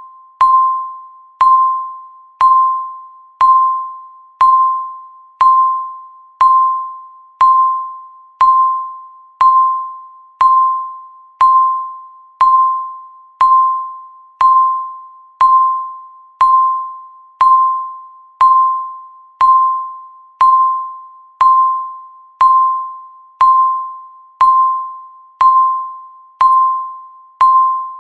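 Countdown timer's electronic tick: a short ringing ding near 1 kHz, struck sharply and fading away, repeating steadily about once a second to mark each second counted down.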